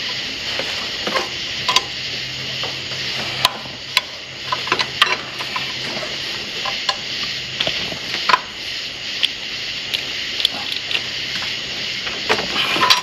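Irregular metal clicks and clinks of a wrench and hand tools working against engine parts, over a steady hiss and a faint low hum.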